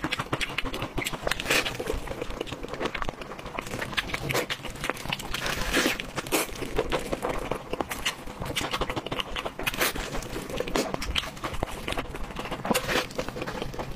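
Close-miked eating: chewing and biting on braised meat, with the meat being torn apart by plastic-gloved hands, heard as an irregular run of quick clicks and smacks.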